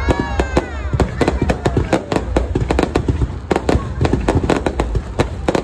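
Fireworks going off in a dense, rapid string of sharp cracks and bangs with no break.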